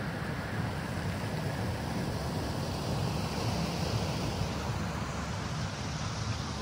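Steady rushing of water flowing through concrete fish-hatchery raceways, mixed with wind buffeting the microphone.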